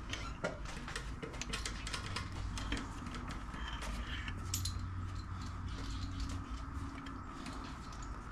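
Scattered light metallic clicks and taps as an engine oil pump and its pickup tube are handled and fitted together, over a faint steady background hum; a low hum comes in about two seconds in and fades out after about six seconds.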